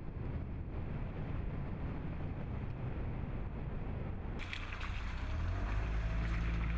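Road and wind noise from a moving vehicle, with wind on the microphone. About four seconds in the sound changes abruptly to a truck engine running with a steady low hum.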